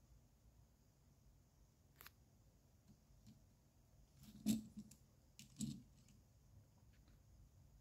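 A plastic Lego toy truck being handled by hand: a sharp click about two seconds in, then a few knocks and clicks as it is picked up and turned around, the loudest about halfway through. Otherwise near silence.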